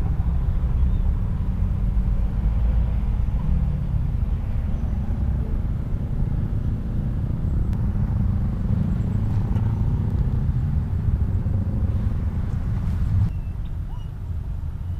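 Wind buffeting an action camera's microphone in open ground: a steady low rumble that drops somewhat near the end.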